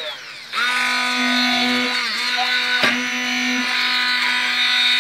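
Stick blender motor running at speed while it purees red fruits cooked in syrup into a coulis in a pan. It winds down just as it starts, comes back up to speed about half a second in, sags briefly in pitch around two seconds in, and there is one sharp knock a little before three seconds.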